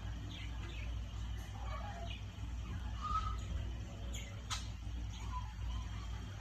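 Steady low hum of aquarium equipment, with a few faint short chirps and a single sharp click about four and a half seconds in.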